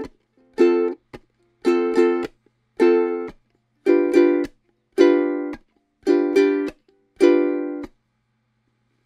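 Ukulele strummed in chords, about one stroke a second with several quick double strokes, each chord damped short before the next. The playing stops near the end.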